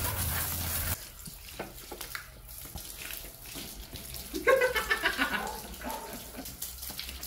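Water from a hose spraying onto a car. The steady hiss cuts off about a second in, and after a few quieter splashes the water spatters against the body panels again, loudest about halfway through.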